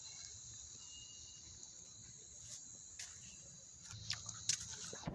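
Crickets chirring steadily in a night-time insect chorus, with a few faint clicks and knocks near the end.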